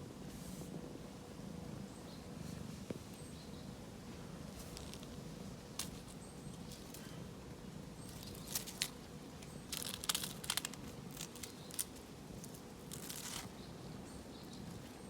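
Scattered short bursts of rustling and crunching, clustered in the second half, over a steady low outdoor hum.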